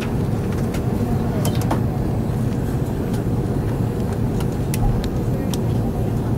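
Steady low rumble of cabin noise inside a jet airliner taxiing on the ground, with scattered light clicks.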